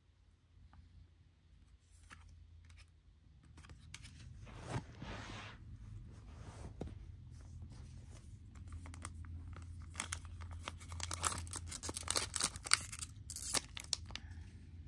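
The wrapper of a trading-card pack being torn open by hand. Faint handling comes first, then crinkling and ripping that grows louder and denser over the last few seconds.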